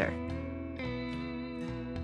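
Background music led by guitar: held chords that change about once a second.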